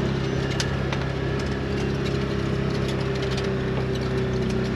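Side-by-side UTV engine running at a steady speed, with scattered clicks and knocks over it.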